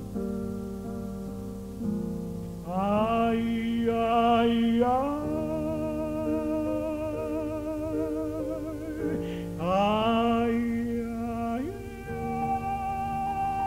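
Operatic tenor voice singing long held notes with heavy vibrato, swooping up into a new note twice, over sustained accompaniment.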